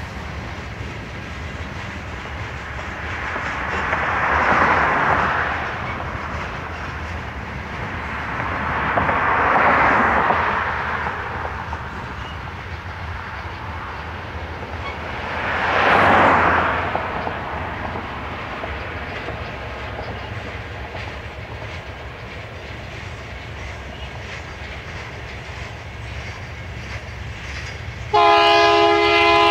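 Freight cars rolling past, a steady low wheel-on-rail noise that swells louder three times. Near the end, a diesel locomotive's air horn suddenly sounds a loud chord of several tones.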